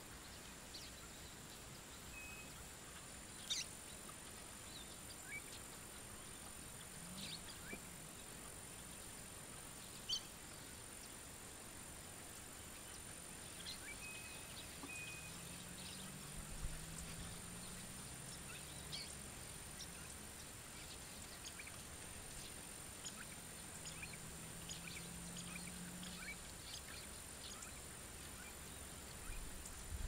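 Faint outdoor ambience: a steady high hiss with scattered short bird chirps and clicks throughout, and a faint low hum twice, around the middle and again later.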